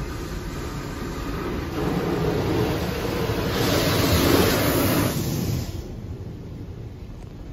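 Touchless car wash spraying water and foam over the car, heard from inside the cabin as a rushing hiss. It swells about two seconds in, is loudest around four to five seconds, then drops off sharply near six seconds.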